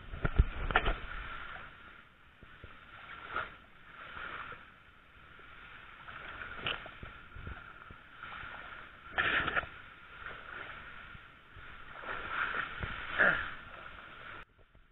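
Tall grass rustling and swishing as a person pushes through a dense stand of it, in irregular bursts of brushing and crackling leaves, over a faint steady hiss.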